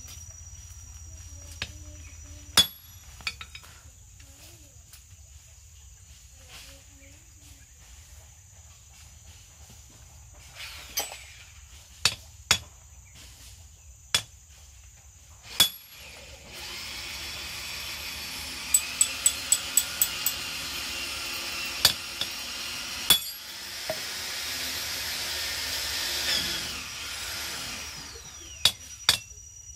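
Hand hammer striking a red-hot steel wangkil blade on an anvil while forging it: scattered sharp metallic blows, then a quick run of about six blows in under two seconds past the middle. For about ten seconds in the second half, a steady rushing mechanical noise runs under the blows, rising a little before it stops.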